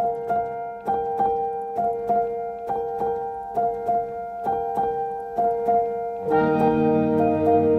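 Instrumental background music on keyboard: a repeating figure of struck notes, about two a second, over a held tone, with a fuller layer of low sustained notes coming in about six seconds in.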